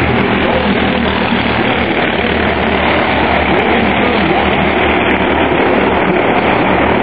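A pack of Mini Cup stock cars running at speed around an oval track, a loud, steady blend of engines with no let-up.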